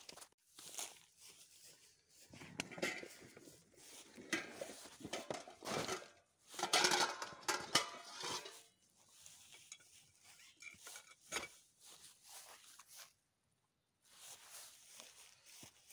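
Rustling and knocking as a bag is handled and set down inside a nylon tent, with light clinks of metal items, loudest in a busy stretch midway through.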